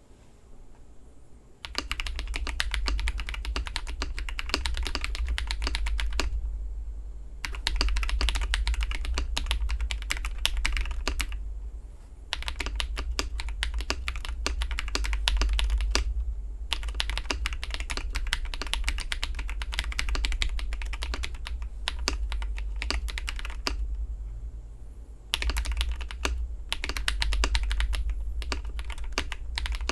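Typing on a KBD67 Lite R2 mechanical keyboard with AKKO CS Rose Red linear switches, Durock V2 stabilizers and AKKO cherry-profile keycaps. The keystrokes come fast and run in stretches of several seconds, broken by short pauses. Typing starts about two seconds in.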